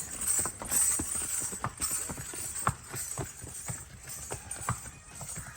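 Horse hooves clip-clopping on hard ground in a quick, uneven run of strikes, several a second.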